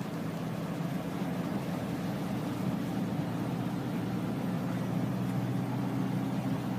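A van's engine running steadily while the tyres hiss through floodwater on the road, heard from inside the cab, slowly growing a little louder.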